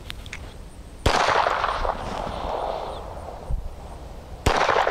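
Two shots from a Phoenix Arms HP25 .25 ACP pistol, about three and a half seconds apart, each a sharp crack trailing off over about a second.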